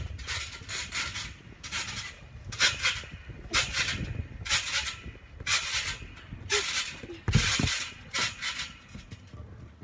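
Trampoline springs and mat creaking with each bounce, about once a second. Near the end comes a heavier thump as a jumper lands on her back on the mat.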